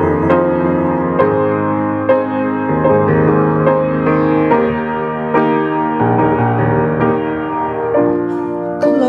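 Grand piano playing a slow instrumental passage of sustained chords between sung phrases of a worship song.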